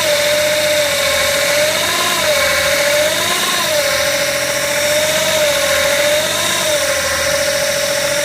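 BMW E61 535d running in gear with a loud, steady whine over the diesel engine; the pitch lifts briefly about four times. The owner suspects the newly fitted torque converter in the automatic gearbox.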